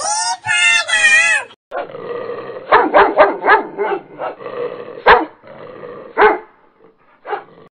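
A dog barking: a quick run of barks about three seconds in, then single barks about a second apart, fading toward the end.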